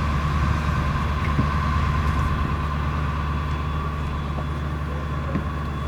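A large truck's engine idling steadily, a low, even rumble.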